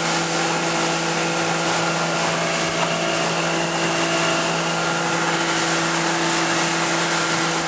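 Boat motor running at a steady speed, its hum holding one pitch over a constant hiss.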